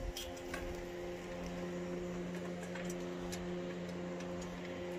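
Socket ratchet clicking in scattered, irregular ticks as a bolt holding the log splitter's work table is turned, over a steady hum.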